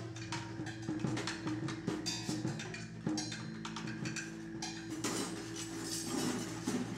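Free-improvised avant-garde music: irregular taps and clicks on a drum kit and percussion over several held low tones from the reeds (bass clarinet, soprano saxophone) and live electronics, with no steady beat.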